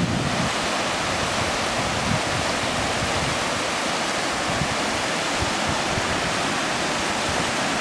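Mountain stream cascading over rocks in a small waterfall: a steady, even rush of water.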